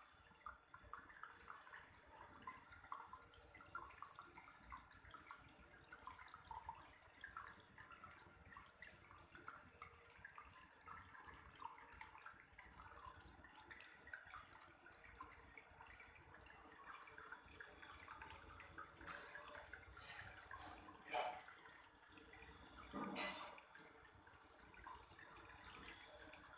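Small homemade water fountain trickling and dripping faintly. A few brief louder noises come about three quarters of the way through.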